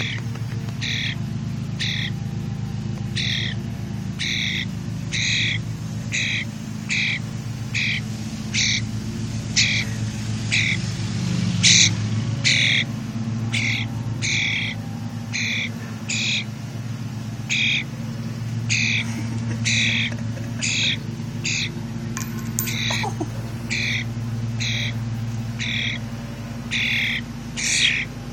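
A bird calling over and over, a short harsh squawk about once a second, over a steady low hum.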